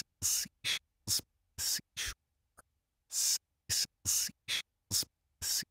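Isolated sibilant 's' and 'sh' sounds from a voice recording, played back through iZotope RX De-Ess in Output S Only mode: about a dozen short hisses separated by silence, with the rest of the voice removed.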